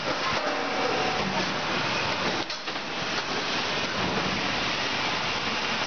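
Automatic bagging machine for 25 kg woven sacks running: a steady, dense mechanical noise, with a short dip about two and a half seconds in.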